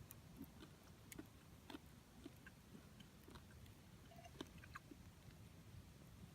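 Faint, sparse crackling of a small wood fire burning in a compact folding firepit: irregular soft pops and clicks over a low background rumble.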